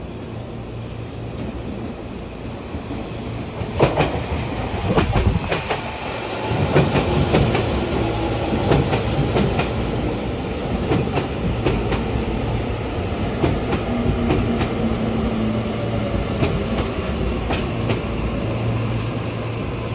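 Tokyu electric commuter train running on the track, its wheels clicking over rail joints. The rumble grows loud about four seconds in, with a flurry of clicks, and stays steady after.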